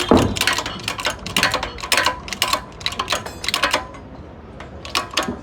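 Quick, irregular metallic clicking and tapping from hand-tool work on a car's suspension, dense for about four seconds and then thinning to a few single knocks.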